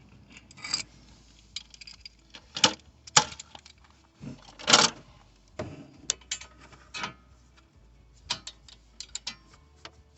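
Irregular metallic clinks and clicks of hand tools and bolts as brake caliper bolts are fitted by hand, the loudest clank about halfway through.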